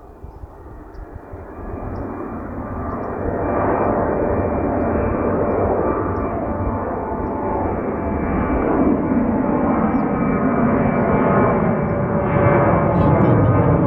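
Jet aircraft engines: a broad rumble with a steady whine on top, growing louder over the first few seconds and then staying loud.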